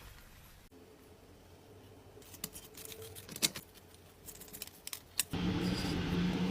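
Several sharp clicks and light metallic knocks, then, about five seconds in, a louder steady sound with a low hum sets in.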